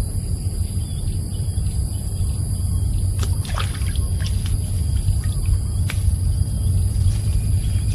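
Water trickling and splashing over a steady low rumble, with scattered small clicks and splashes from about three seconds in.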